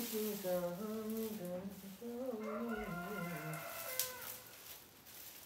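A rooster crows once for about two seconds, partway through, over a low wavering human voice humming a tune. There is a sharp click about four seconds in.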